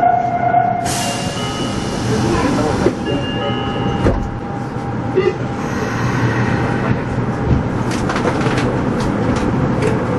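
Meijo Line subway train heard from the driver's cab, standing at the platform and then starting to pull away, with steady rumble. A hiss starts about a second in and lasts about two seconds, and there is a single click about four seconds in.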